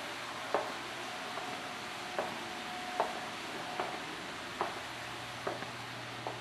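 Footsteps on a tile floor at a steady walking pace, one short knock about every second, over a constant hiss.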